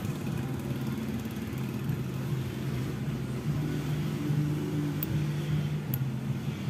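Steady low hum of a motor vehicle engine running in the background, swelling a little around the middle. A few faint light clicks come near the end.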